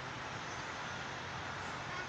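Steady outdoor background noise: an even hiss with a faint low hum, no siren sounding.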